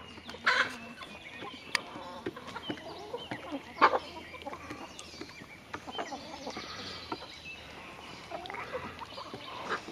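Domestic hens clucking softly at close range, with scattered short calls and a few sharp clicks.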